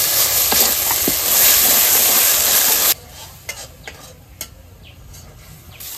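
Spice paste with poppy seeds sizzling in oil in a wok while a spatula stirs it, during the browning (kashano) stage. The sizzle cuts off suddenly about halfway through, leaving only a few faint clicks, then starts to rise again near the end.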